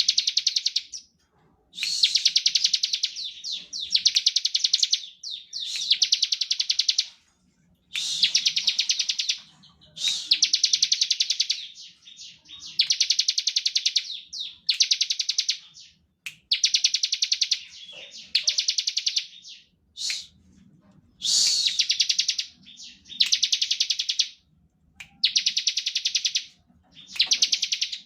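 Bar-winged prinia (ciblek) singing its 'ngebren' song: bursts of very rapid, high repeated notes, each lasting about a second, repeated every second or two with short pauses between.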